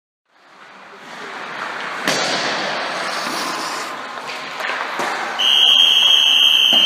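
Echoing ice-rink practice noise: a steady hiss of skates on ice with sharp cracks of pucks and sticks, two standing out about two seconds and five seconds in. A steady high tone comes in a little after five seconds and holds.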